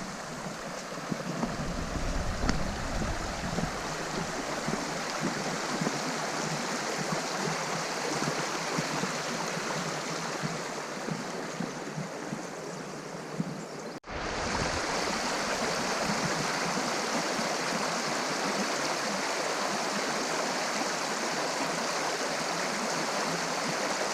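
Steady rush of flowing stream water. It breaks off for an instant about fourteen seconds in, then resumes slightly louder.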